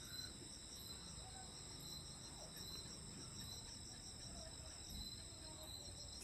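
Faint, steady high-pitched insect chorus with an evenly pulsing trill.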